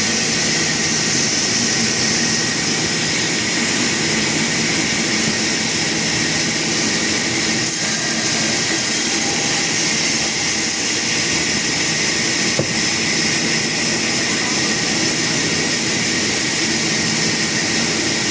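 Sawmill saw running, a loud, steady machine noise with no pauses.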